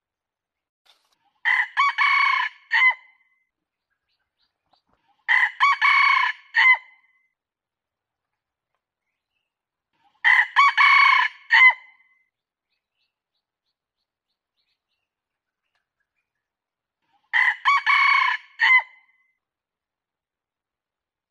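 Red junglefowl rooster crowing four times, each crow about a second and a half long and broken into several notes, with several seconds of quiet between crows. It is a lure call recording used to draw in wild junglefowl.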